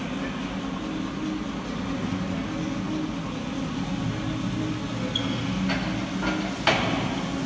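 Loaded barbell set back into the squat rack's hooks at the end of a heavy back squat: two light metal clinks, then a sharp clank about six and a half seconds in, over a steady low hum.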